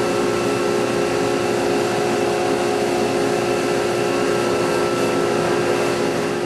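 Haas VF-5 CNC machining center roughing Ren Shape tooling board with a 2.5-inch, five-insert Sandvik face mill on a long extension: a steady whine from the spindle with several held tones over an even hiss.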